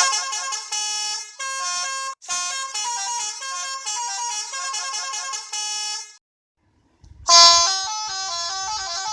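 Bus 'telolet' musical horn playing a tune of several tones that jump from note to note. It breaks off about six seconds in and starts again a second later.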